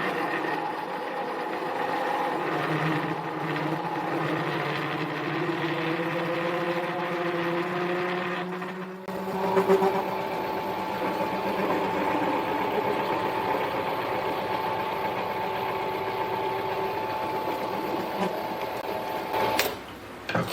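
Harbor Freight mini lathe running steadily while turning a steel collar, its motor and drive giving a steady machine hum with several held tones. The sound changes abruptly about nine seconds in and stops near the end.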